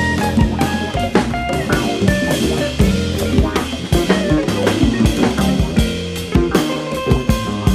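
Small acoustic jazz group recording: a drum kit playing frequent snare, rimshot and bass drum strokes over an acoustic bass line, with other pitched instrument notes above.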